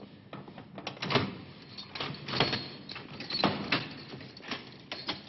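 A key being worked in the lock of a metal prison cell door as it is unlocked: a string of sharp metallic clicks and clacks, about ten in all, spread unevenly.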